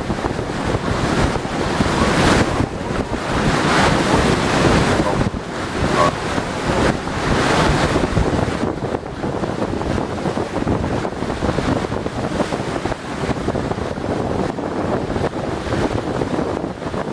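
Wind buffeting the microphone over a steady wash of sea water, rising and falling in gusts.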